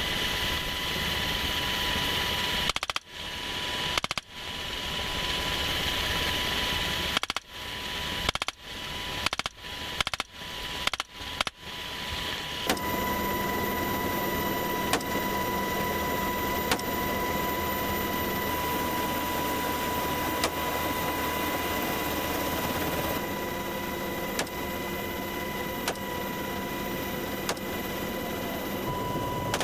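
Steady engine and rotor noise of a military helicopter in flight, heard from its open door, broken by rifle shots. Two single shots come about a second apart around three seconds in, then a quick string of about seven shots over the next four seconds. After that only the helicopter's steady noise remains, with a few faint ticks.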